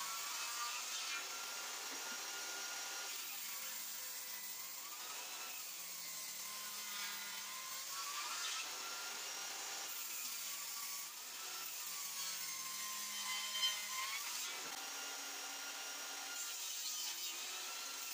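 Homemade table saw's spinning blade ripping pine boards. The motor's whine sags in pitch each time the blade bites into the wood and recovers between passes, several times every few seconds.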